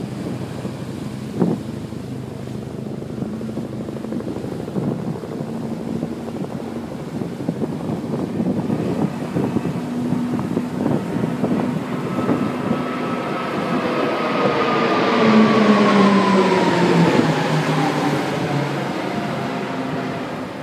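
Wind on the microphone and sea surf, then a formation of aircraft flying past overhead. Their engine drone grows louder past the middle, is loudest about three-quarters through, and drops in pitch as they pass.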